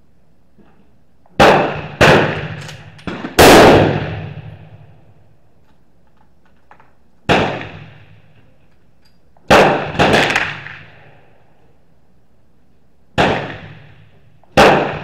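Gunshots on a covered firing line from several shooters: about eight sharp reports at irregular intervals, each with a long echoing tail off the concrete. Most come while the bench-01 shooter is writing or loading, so they are other shooters' guns.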